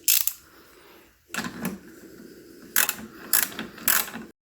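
Ratchet and socket clicking in short runs as a lock nut is turned down onto a bolt by hand, then the sound cuts off suddenly near the end.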